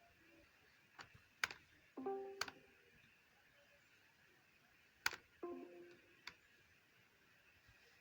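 A handful of sharp clicks and taps, seven or so and irregularly spaced, over faint hiss. Twice a short, low pitched blip about half a second long sounds with a click, about 2 seconds in and again about 5.5 seconds in.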